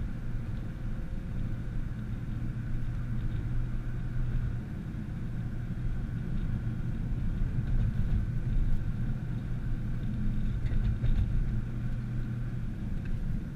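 Nissan GT-R driving, its engine and road noise a low, steady rumble.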